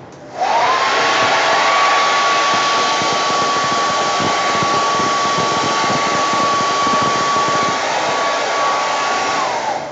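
Hair dryer switched on about half a second in: its motor whine rises briefly and then holds steady over the rush of air, then falls away as it is switched off near the end. It is blowing wet acrylic pour paint across a canvas.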